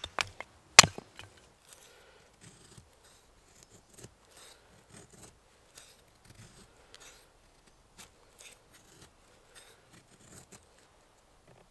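A hatchet striking and splitting a piece of wood on a stump once, about a second in, the loudest sound. Then a knife shaving thin curls off a wooden stick to make a feather stick: a run of short scraping strokes, roughly two a second.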